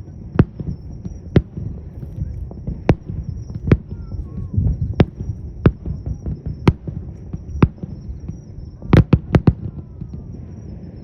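Fireworks shells bursting, sharp bangs at irregular intervals over a continuous low rumble, with a quick volley of four or five bangs near the end.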